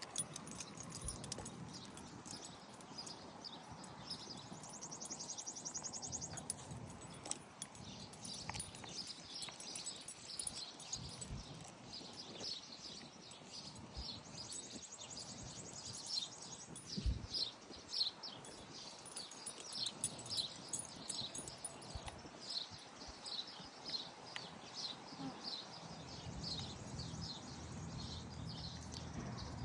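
Birds chirping over and over in short high calls, with a quick trill about five seconds in and a steady run of chirps about two a second in the second half; occasional low thumps.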